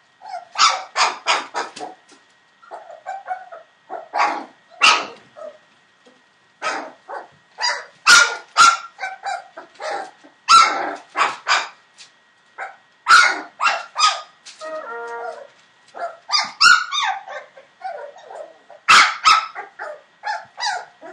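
Four-week-old Entlebucher Mountain Dog puppies barking and yapping: high-pitched short yaps in quick runs with brief pauses, and one drawn-out whine about two-thirds of the way through.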